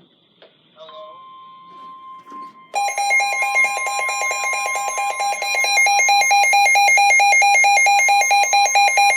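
NOAA Weather Radio warning alarm tone: a steady single-pitch tone starting about a second in. About three seconds in, a much louder, rapidly pulsing electronic alarm, the weather radio receiver's own alert, sounds over it.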